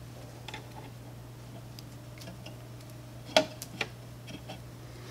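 A few small, sharp clicks and taps as the Bowden tube is worked loose from an Ultimaker 2+ 3D printer's print head. The two loudest come about three and a half seconds in, over a steady low hum.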